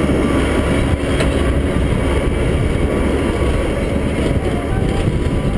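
Steady low noise of a farm vehicle running while under way, heard from on board.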